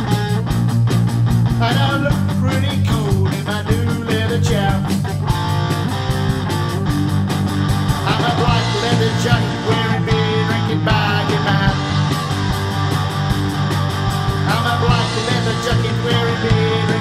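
Punk-style rock song with guitar and a steady beat, a stretch of the track with no sung words.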